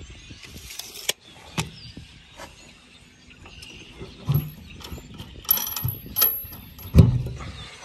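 Scattered metallic clicks and knocks of hardware being handled, a hex-head bolt turned by hand in a wooden post, with a sharper, louder knock about seven seconds in.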